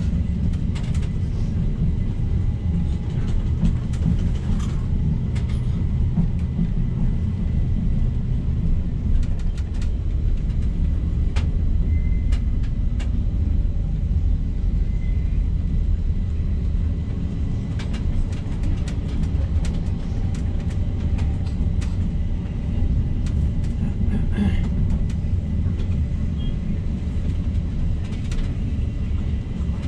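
Low-floor tram running along its track, heard from inside the car: a steady low rumble with scattered light clicks and rattles.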